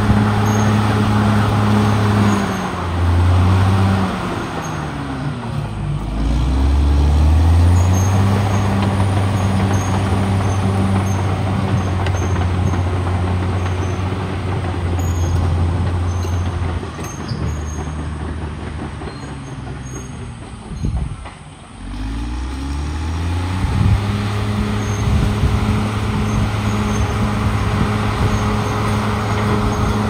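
Caterpillar D6R XL bulldozer's diesel engine working under load, its pitch falling a few seconds in, then rising back after a brief drop in loudness about twenty seconds in, and holding high and steady near the end.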